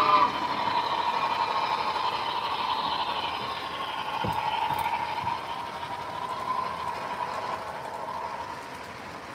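Model steam locomotive and its freight cars running across a bridge on a model railroad: a steady running sound that slowly fades as the train passes.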